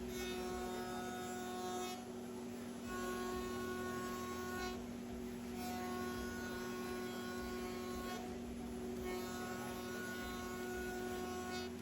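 CNC router running with a steady hum. A higher whine cuts in and out every couple of seconds, each time dropping away for about a second.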